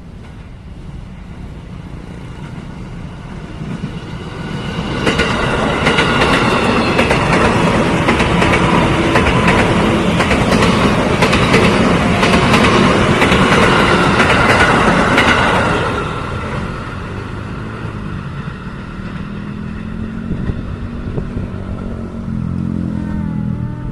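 A train passing close by, its wheels clattering over the rail joints. It swells from about four seconds in, is loudest until about sixteen seconds, then fades back. Steady high tones ride over the clatter while it is loudest.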